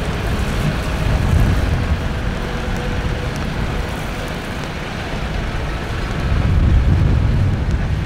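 Tractor engine pulling a plough, with strong wind buffeting the microphone. The rumble swells louder about six seconds in.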